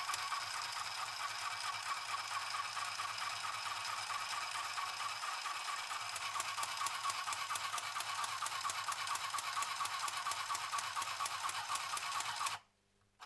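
Mini sewing machine running steadily, stitching through fabric with a fast, even rattle of needle strokes, then stopping suddenly near the end.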